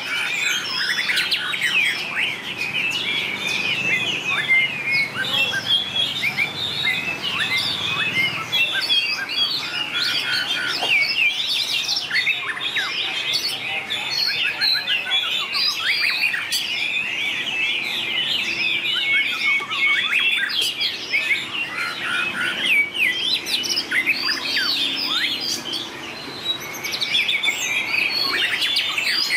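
White-rumped shama singing in competition, a dense, unbroken stream of rapid, varied whistles, slurred glides and chirps.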